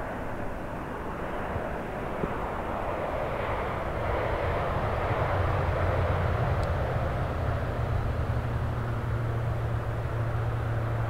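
Boeing 767 airliner on final approach, its jet engine noise growing louder as it nears. A steady rush swells about halfway through and a low hum comes in underneath.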